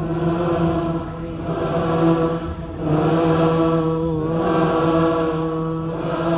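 Concert crowd singing held chords together as an audience choir, moving to a new chord several times.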